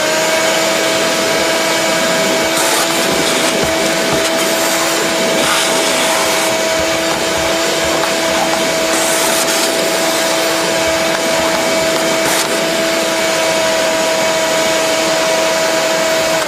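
Wet/dry shop vacuum running steadily with a high motor whine and the rush of air, vacuuming leaves off boat carpet. It is switched off at the very end.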